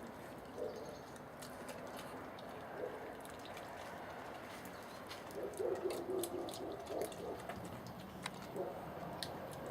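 Foxes vocalizing with short, broken low calls, clustered about five to seven seconds in, over scattered sharp clicks and taps.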